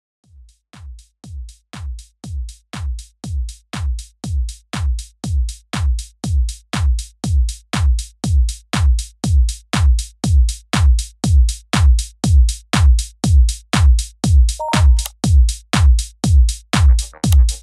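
Electronic dance music: a drum-machine kick beating about twice a second, fading in over the first few seconds, with more synth layers joining near the end.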